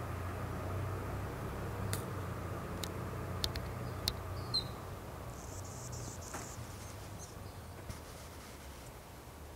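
Insects trilling high in patches, over a low steady hum, with a few sharp ticks around the middle and one short high chirp.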